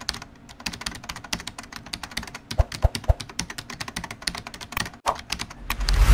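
Rapid, irregular clicking and tapping like keyboard typing, with a low thud near the end.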